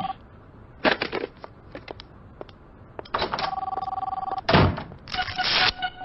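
A phone ringing in steady two-tone rings, one ring about a second long in the middle and another just ending at the start. Between the rings come rustling, clicks and a low thump.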